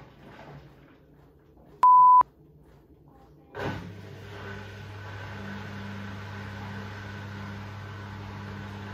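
Front-loading washing machine giving one short electronic beep. About a second and a half later its motor starts, with a sudden thump, into a steady hum.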